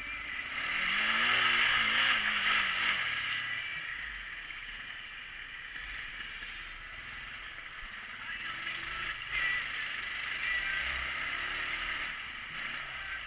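Side-by-side UTV engine running and revving up and down over rough trail, under a steady rush of noise; the engine pitch climbs and falls in the first few seconds and again later on.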